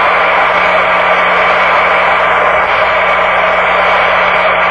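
Cockpit voice recorder audio from a Boeing 747 cockpit between crew remarks: a steady hiss of cockpit background noise with a constant low hum, sounding thin and band-limited.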